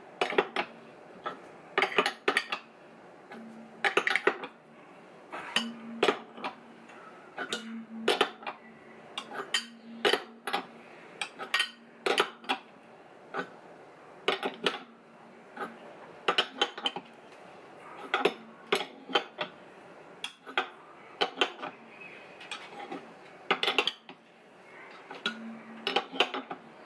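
Open-ended spanner turned in short strokes on a bolt, clinking metal on metal every second or two as it is lifted off and refitted on the flats. The bolt and spacer are drawing an engine mount into its bore in the engine casing as a tight pulling fit.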